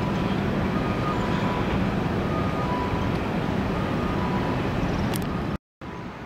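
Steady urban traffic rumble of vehicle engines, with faint short electronic beeps alternating between two pitches about every second and a half. The sound breaks off briefly near the end and comes back quieter.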